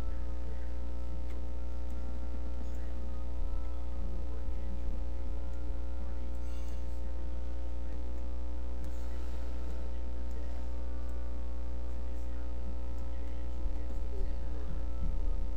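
Steady electrical hum: a strong low drone with a stack of fainter steady tones above it, holding level throughout.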